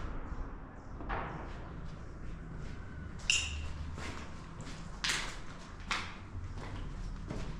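Footsteps on a floor strewn with rubble and debris, a step about once a second. One step about three seconds in gives off a brief high ring.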